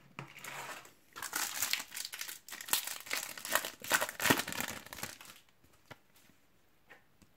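A Match Attax trading-card booster pack's plastic wrapper being crinkled and torn open by hand, a dense crackling that stops a little after five seconds in, followed by a few faint clicks.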